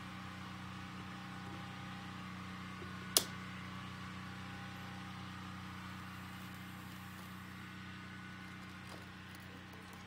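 Steady low mechanical hum, with a single sharp click about three seconds in.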